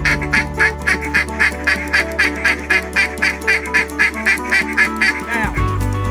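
Mallard duck call blown in a fast, even string of quacks, about four or five a second, ending with a falling note near the end, over background music with a low drone.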